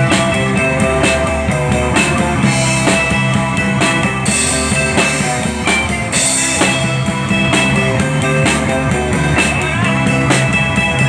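Rock band playing live: an instrumental passage with drum kit, bass and guitars, steady beat and cymbal crashes.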